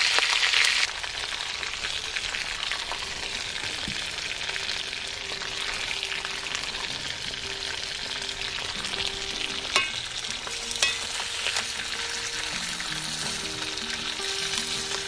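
Whole red shrimp frying in a small iron pan of oil over a wood fire: a loud hiss for the first second, then a steady sizzle. A few sharp clicks of metal tongs against the pan come about two-thirds of the way in. Background music with held notes comes in about four seconds in.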